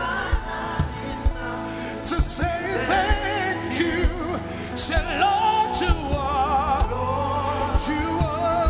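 Live gospel worship music: a band with drums playing steadily under a singer's voice, with wavering vibrato and long held notes.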